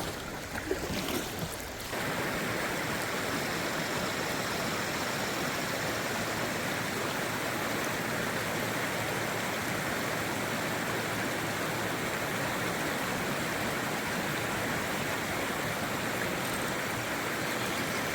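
Steady rush of river water flowing over rocks, setting in about two seconds in and holding even.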